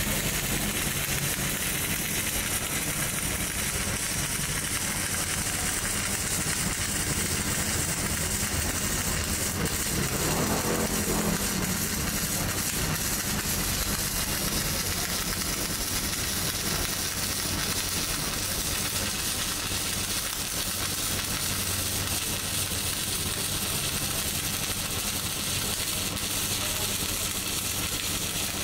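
Electric arc welding: the steady crackling sizzle of the welding arc as a bead is laid along a steel joint, over a low steady hum.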